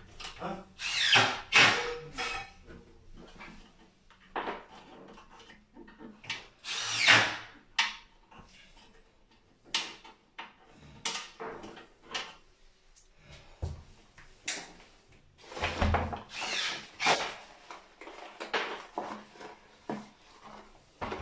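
Cordless drill-driver run in several short bursts, with clicks and handling noises between them, driving screws at the breakers of a consumer unit.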